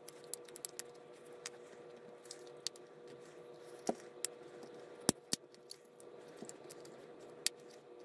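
Scattered sharp plastic clicks and taps from the DJI FPV remote controller's housing being handled and pressed back together, the loudest about five seconds in, over a faint steady hum.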